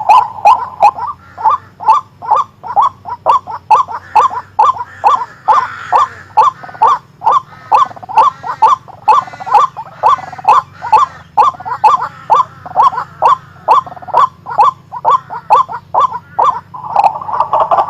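White-breasted waterhen calling: a long run of short, harsh pitched notes repeated evenly, about three a second.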